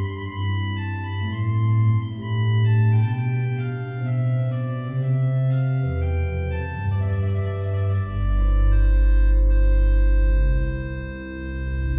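Pipe organ playing slow, sustained chords, the harmony moving on about once a second, with a deep pedal bass note coming in about eight seconds in.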